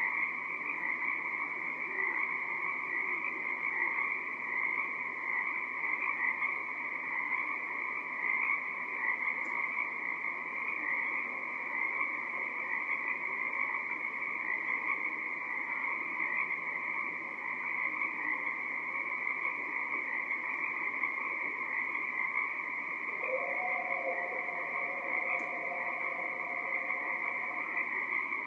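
Dense chorus of many Pacific tree frogs (Pacific chorus frogs) calling steadily at night. Near the end a fainter, steady two-note tone rises in and holds for about five seconds.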